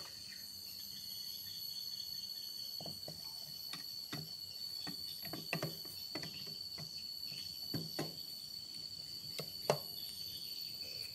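Scattered light clicks and knocks of a metal magneto (generator) cover being handled and fitted onto a motorcycle engine's crankcase, the sharpest knock near the end. A steady high-pitched whine runs underneath.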